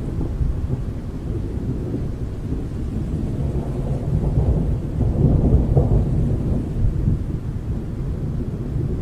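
Thunder rumbling over the sea, swelling to its loudest a little past the middle, with a steady hiss of rain.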